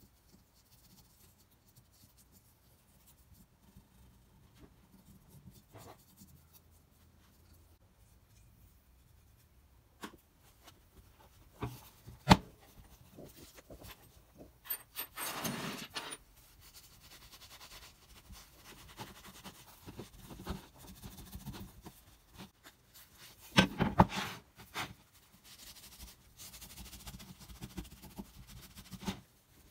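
Faint scratchy rubbing of a wooden-stick cotton swab working polishing compound into the corners of a cast-iron plane body. From about a third of the way in, a cloth rag buffs the compound off: louder rubbing in bursts, with a few sharp knocks.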